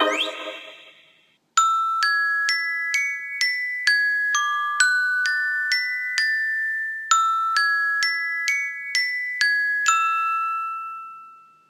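A bell-like iPhone ringtone melody of single chime notes, about two a second, playing the same phrase twice and ending on a long note that rings out. It starts after the previous ringtone fades away.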